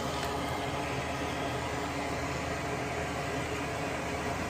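Steady fan-like whooshing noise that does not change.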